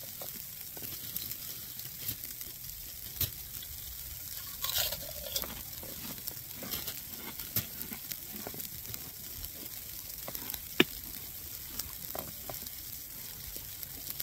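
A person eating, with small scattered clicks and taps over a faint steady hiss. One sharper click stands out about ten seconds in.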